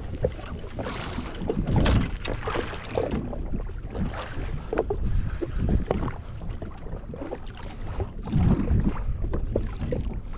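Water slapping and lapping irregularly against the hull of a drifting jetski, with wind buffeting the microphone.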